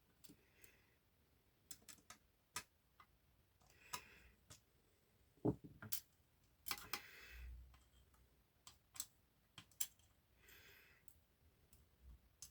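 Faint, irregular metallic clicks and ticks from lockpicking tools working the levers inside an eight-lever lever lock, with a few short soft scrapes between them.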